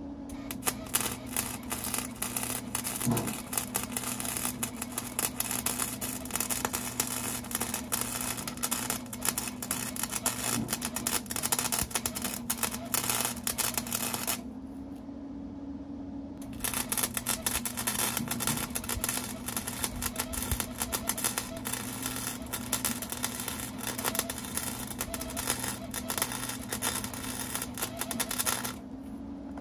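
Wire-feed welder laying two welds, each a dense, steady crackle of about twelve to fourteen seconds, with a short pause about halfway through; a steady hum runs beneath.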